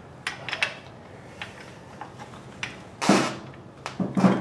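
A steel pry bar through the Honda CX500 frame being levered to shift the engine into line with its mount bolt holes: a few sharp metal clicks and taps, then two longer noisy bursts about three and four seconds in that sound like straining grunts of effort.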